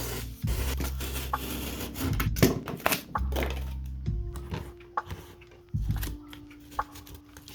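Background music with sustained bass notes, over scattered short clicks and knocks.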